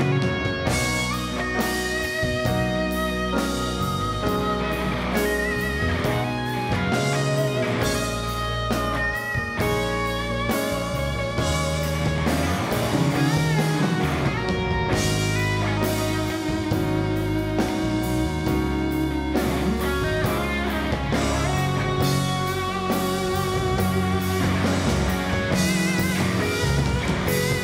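Live rock band in an instrumental break: an electric guitar plays a lead line with wavering, vibrato-held notes over a drum kit and bass guitar.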